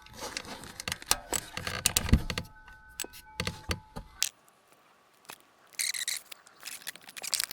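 Metal clicks, clinks and light knocks of hand tools and bolts being handled while the oil filter housing cover of an ATV engine is loosened, with brief scraping near the end.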